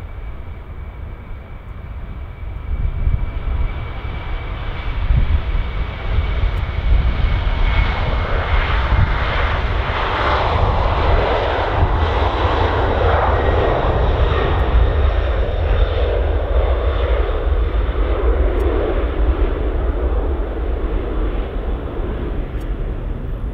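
Boeing 747-400's four jet engines at takeoff power during the takeoff roll and lift-off. A thin steady whine fades after the first few seconds, then the engine noise swells to its loudest about ten seconds in and eases slightly near the end, over a constant low rumble.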